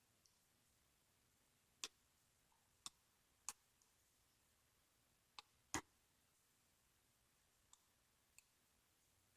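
Sparse sharp clicks from a lock pick and tension wrench working the pin stack of a Master Pro Series 6321 padlock held in a false set, about five clear clicks spread out with the loudest just past the middle and two fainter ticks near the end, over near silence.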